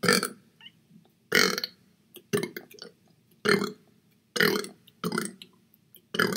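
A man burping on command: a string of short belches, about one a second.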